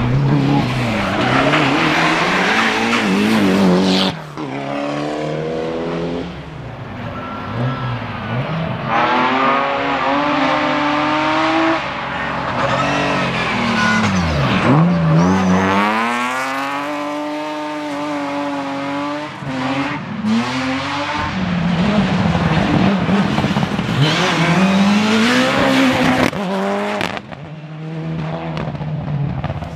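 Rally cars at speed on a closed tarmac stage, one after another, engines revving hard, their pitch climbing through the gears and falling sharply off the throttle for braking. The sound cuts abruptly between cars several times.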